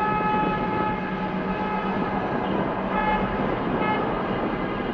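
A horn sounding over steady engine and traffic rumble: one long blast, then two short toots about three and four seconds in.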